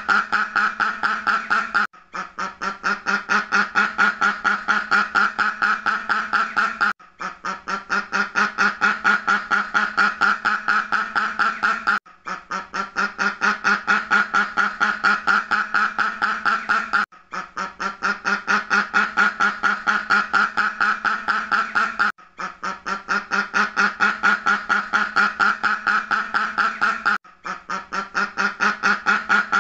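Duck quacking in a rapid, even run of about five or six quacks a second. The runs last about five seconds, start softer and build, and are each broken by a brief gap: a looped recording repeating the same stretch.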